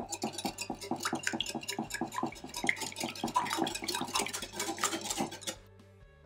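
Wire whisk beating eggs and oil in a glass bowl: a fast, even run of clicks and clinks as the wires strike the glass, several strokes a second. It stops shortly before the end.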